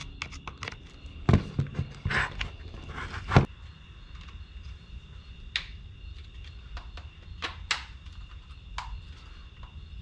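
Plastic clicks, snaps and knocks as the housing of a Ford F-250 fuse panel is pried and worked apart by hand, its retaining tabs letting go; the sharpest snap comes about three and a half seconds in.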